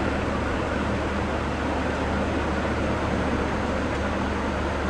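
Steady room noise: an even hiss over a low hum, unchanging throughout, with no distinct events.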